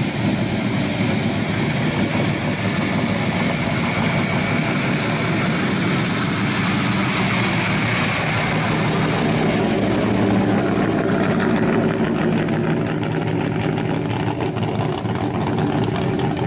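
Custom 1970s Ford pickup truck's engine running at low speed with a steady, deep note as the truck rolls slowly by. The sound dulls from about ten seconds in as the truck moves away.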